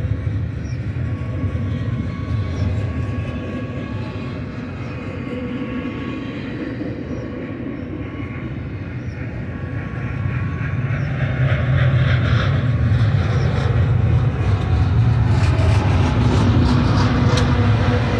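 Double-stack intermodal well cars rolling past with a steady rumble of wheels on rail, scattered clicks and light squeals. About two-thirds of the way through it grows louder as the rear distributed-power locomotive, a GE ES44AC, draws near. A steady engine drone joins near the end.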